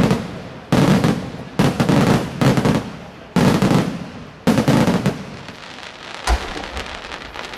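Aerial firework shells bursting one after another, about seven sharp bangs, each dying away over about a second, with a gap of nearly two seconds before the last.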